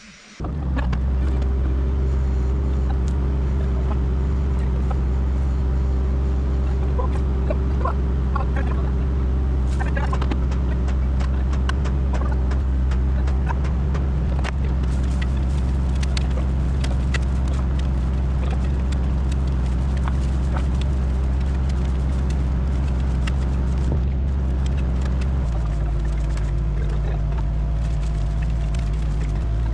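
Engine running steadily at constant speed, with scattered clicks and knocks over it; about 25 seconds in, its low note changes.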